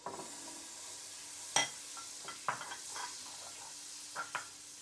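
Butter sizzling as it melts in a hot nonstick pan, a steady hiss, while a spatula stirs it, knocking against the pan about seven times, most sharply about a second and a half in.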